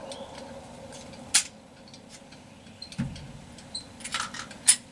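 Sharp metallic clicks and clacks of a Glock 27 .40 pistol being worked by hand, about four of them, with a dull thud midway and the loudest click near the end. They fit a stoppage being cleared, which the shooter puts down to the extended magazine and his grip.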